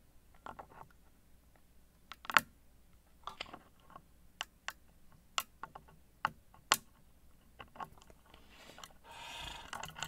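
Small, irregular metallic clicks and scrapes of a dimple pick and tension tool working the spool pins inside a Mottura Champions C43 Plus euro cylinder, with one louder click about two and a half seconds in. Near the end there is a soft rush of noise lasting about a second.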